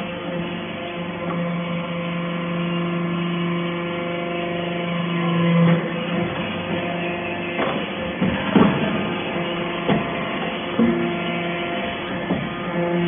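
Hydraulic metal-chip briquetting press running: a steady hum from its hydraulic pump that drops away about six seconds in, with several sharp metallic knocks in the second half as the press cycles and pushes out briquettes.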